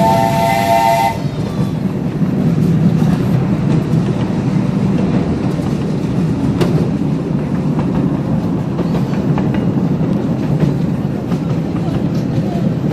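A live steam locomotive's whistle sounds a chord of several notes and cuts off about a second in. After it, the ride-on train runs with a steady rumble of wheels on the rails, with one sharp click about halfway through.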